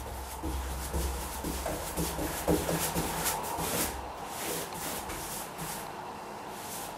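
Paintbrush stroking gloss paint onto wooden door woodwork: soft, uneven rubbing strokes.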